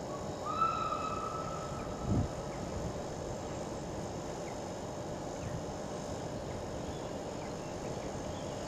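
Ivatt Class 2MT 2-6-0 steam locomotive sounding its whistle as it runs into the station: a very short toot, then one held note of about two seconds. A low thump follows about two seconds in, over a steady low rumble.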